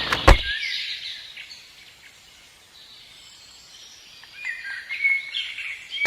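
Birds chirping and calling in short, high notes, sparse at first and busier near the end, after a sharp click just at the start.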